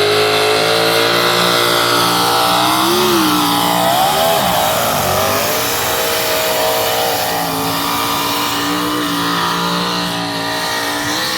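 Big-block engine of a pulling tractor running at high revs under load during a pull, its pitch wavering up and down for a couple of seconds about three to five seconds in, then holding steady again.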